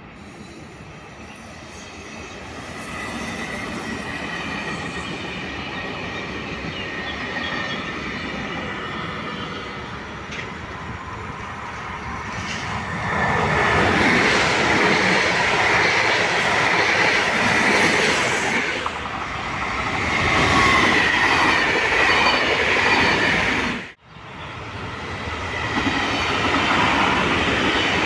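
A train running into a station, building over the first few seconds and growing loud about halfway through, with a steady high wheel squeal over the rumble and clatter of the wheels on the rails. The sound cuts out for an instant near the end and then picks up again.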